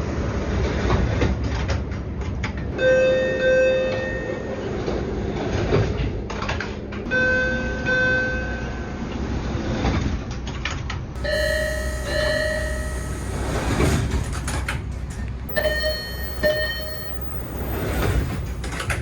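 MBTA Orange Line subway car door chimes: four separate two-note chimes spread through the stretch, each pitched a little differently. They sound over the steady rumble of trains and platform.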